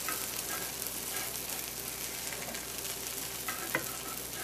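Pancakes sizzling in a hot nonstick frying pan as a steady hiss, with a few faint ticks of a spatula against the pan.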